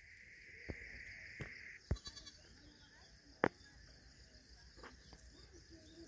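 Boer goats bleating faintly over a steady high buzz that stops about two seconds in. A few sharp clicks sound through it, the loudest about three and a half seconds in.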